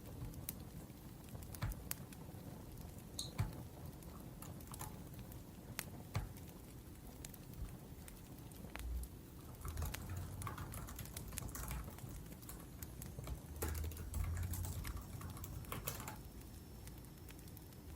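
Typing on a laptop keyboard, with keys clicking in irregular bursts that get denser about halfway through, over the scattered crackles and pops of a burning wood fire.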